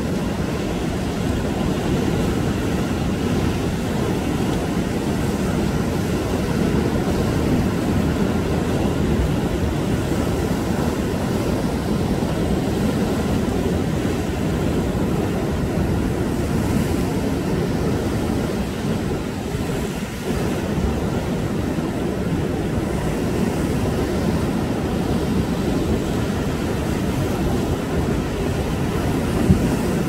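Sea surf breaking over dark volcanic basalt rocks, a continuous low rumble of waves and churning foam.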